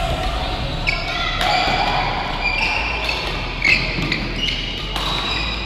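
Badminton shoes squeaking on the court during a rally, with several sharp racket hits on the shuttlecock.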